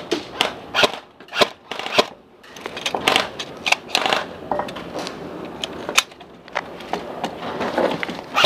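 Airsoft guns firing in irregular single shots, a sharp snap roughly twice a second, some close together.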